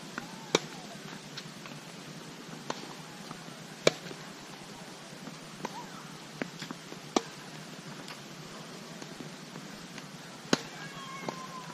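Tennis balls struck by rackets in a rally on a hard court. The loudest sharp pops come about every three seconds, with fainter hits and ball bounces in between.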